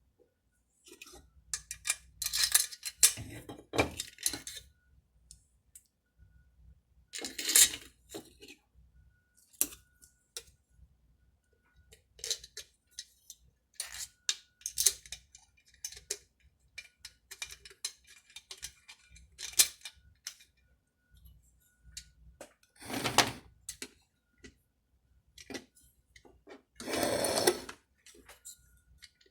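Small metal clicks, taps and clatter of hand tools and chainsaw parts being handled during reassembly, with a few louder scraping rasps, the longest about a second near the end.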